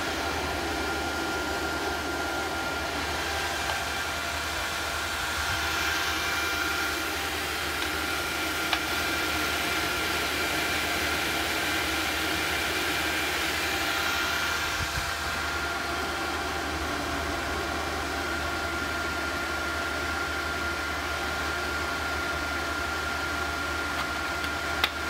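Small induction heater running steadily while melting bronze in a graphite crucible: a constant high-pitched electrical whine over a steady fan-like hiss and a low hum. Two faint clicks, about a third of the way in and at the very end.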